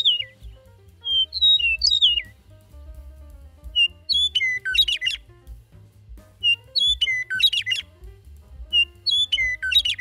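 Eastern meadowlark singing two clear, slurred whistled phrases, followed by a western meadowlark singing three phrases that open with a whistle and tumble down into a rapid, flute-like warble.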